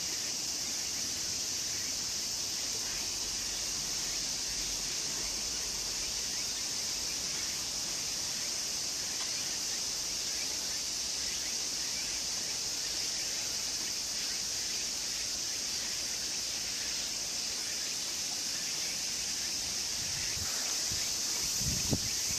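Steady, high-pitched drone of an insect chorus, with a few low thumps near the end.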